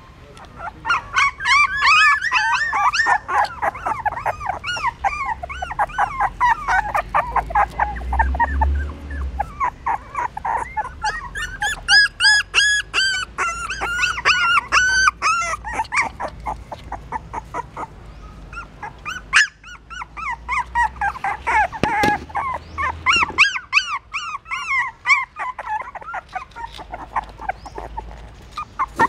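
Young puppies whimpering and squealing: many short, high-pitched cries in quick succession, with a brief lull about two-thirds of the way through.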